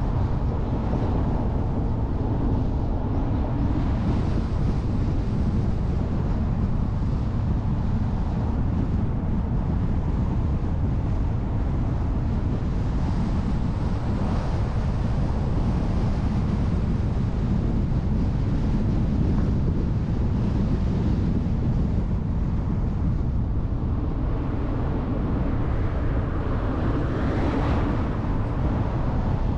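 Steady rush of wind on the microphone with road and engine noise from a car driving along, heavy in the low end and unchanging in level.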